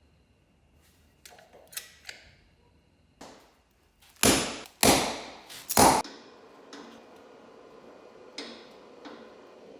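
Hammer blows on steel: a few light taps, then three loud ringing bangs about half a second apart, as the lift's anchor bolts are driven down. A faint steady hum with scattered ticks follows.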